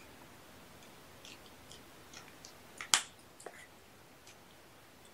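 A kitten eating from a bowl: faint, scattered chewing clicks, with one sharp click about three seconds in.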